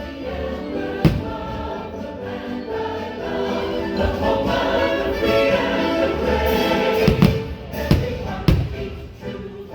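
Patriotic choral music from a fireworks show's soundtrack, with firework bursts as sharp booms: one about a second in and three more close together near the end.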